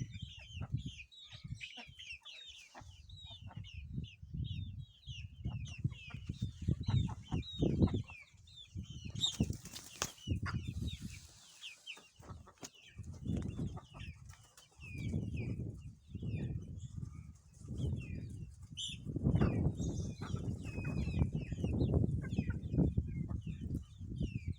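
Poultry peeping and chirping in quick, short falling notes, over irregular bursts of low rustling and flapping noise. A brief louder rush of noise comes about nine seconds in.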